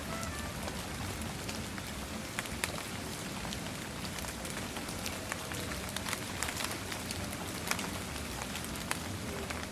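Steady rain falling, with many sharp separate drops striking close by.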